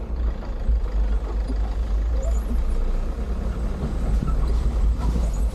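Off-road 4x4 vehicle running, a steady low engine rumble.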